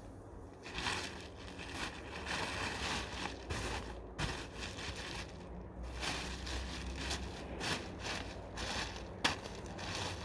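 Moss being pulled and scraped by hand off a shelter roof: irregular rustling, tearing and scraping strokes one after another, with a sharper crack about nine seconds in.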